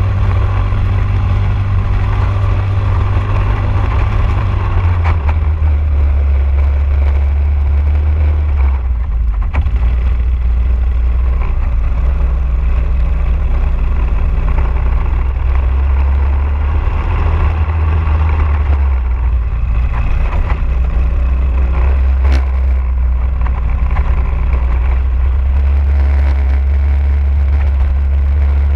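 Briggs & Stratton LO206 single-cylinder four-stroke kart engine running at racing speed, heard from onboard the kart. Its note drops and climbs again a few times as the kart slows for corners and accelerates out of them.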